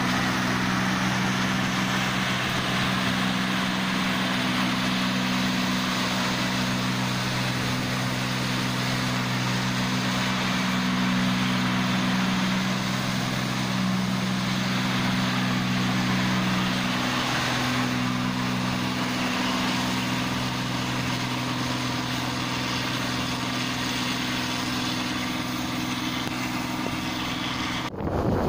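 New Holland 8070 combine harvester working in a rice field: its diesel engine runs at a steady pitch under load, over the broad rush of the cutting and threshing machinery.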